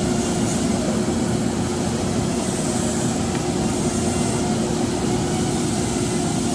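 Froriep 48-inch vertical turret lathe running under power: a steady mechanical drone with a constant low hum from the drive and gearing.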